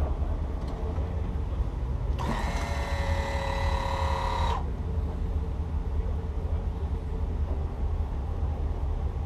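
Twin 7.4-litre (454) GM V8 inboard engines idling at low speed, a steady low rumble. About two seconds in, a high, buzzy tone sounds for roughly two and a half seconds and cuts off sharply.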